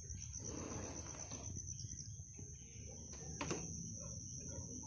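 Night insects trilling in a steady high-pitched tone, over a continuous low rumble; a single sharp click about three and a half seconds in.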